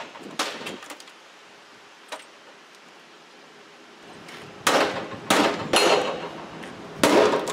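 Baseball bat striking the plastic casing of a CRT computer monitor. There is one hit near the start and a faint knock about two seconds in, then four hard blows in quick succession in the second half, each echoing briefly. The casing holds up without breaking.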